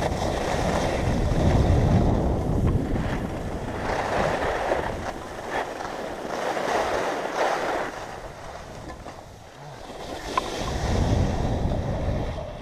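Wind rushing over the camera microphone and skis hissing over groomed snow during a downhill run, swelling and fading every couple of seconds with the turns and dipping briefly about nine seconds in.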